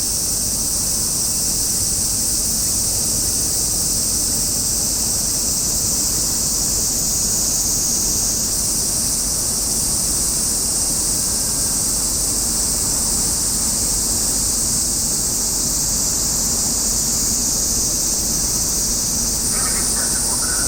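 Steady outdoor background: a loud high-pitched hiss over a low rumbling noise, unchanging in level.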